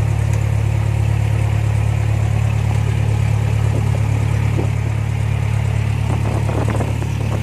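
Cessna 172's piston engine running steadily, heard from inside the cabin as a constant low drone with no rise or fall in speed.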